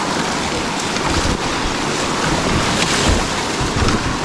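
Whitewater rushing around a kayak as it runs a rocky rapid, a steady loud rush with wind buffeting the microphone in low rumbles.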